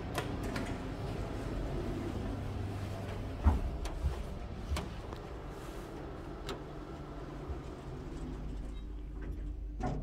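Old Hitachi elevator's centre-opening sliding doors opening and later closing, over a steady low hum. There are a few knocks, the loudest about three and a half seconds in, and a thump as the doors shut near the end.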